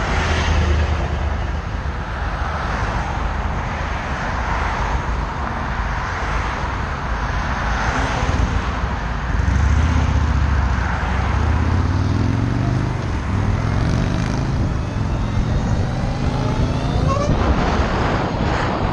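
A group of motorcycles sitting in traffic with a low, steady rumble, then pulling away in the second half with several rising whines as they speed up.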